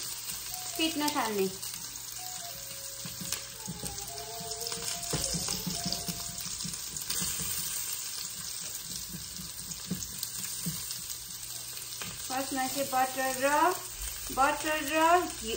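Eggs sizzling in a hot nonstick frying pan on high heat while a silicone spatula stirs and scrapes them, with light knocks of the spatula against the pan. Background music with a melody comes in during the last few seconds.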